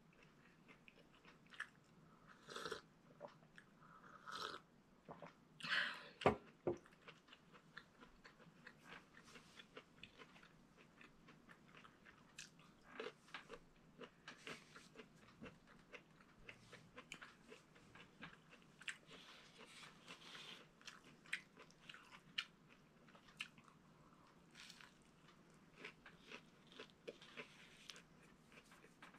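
Close-up eating sounds: chewing and crunching of food, with soft crackles and mouth clicks throughout and a few louder bursts in the first seven seconds.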